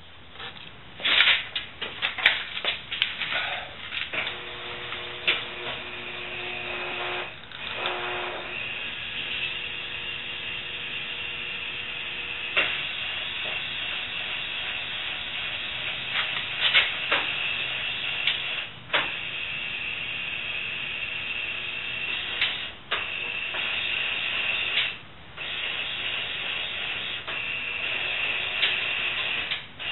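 Electric bed motors raising a homemade lift table with a steady whirring hum. A few clicks come in the first seconds, and the hum cuts out briefly twice.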